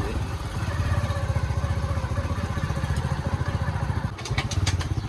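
Motorcycle engine running steadily with an even, rapid pulse, with a few sharp rattles about four seconds in.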